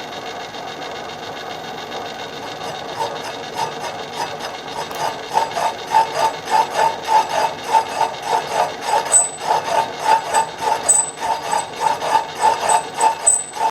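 A machine tool running while its cutter takes a light cut on a drill-press sleeve that is being trued up. The tool scrapes rhythmically, about three times a second, starting a few seconds in and growing louder.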